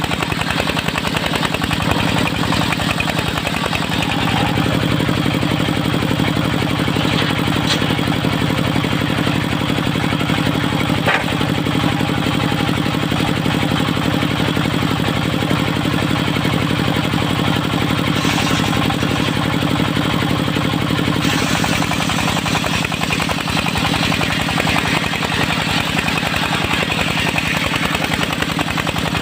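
Engine driving a mobile circular sawmill, running steadily, with a single sharp knock about eleven seconds in and a change in its sound about twenty-one seconds in.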